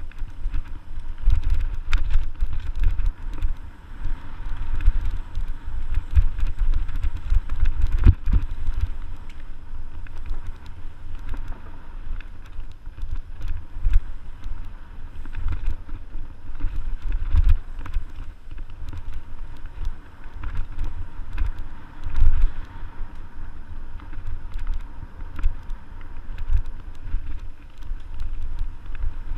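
Mountain bike ridden over a dirt forest trail, heard through a GoPro action camera riding along: a constant low buffeting rumble with frequent small knocks and rattles from the bumps.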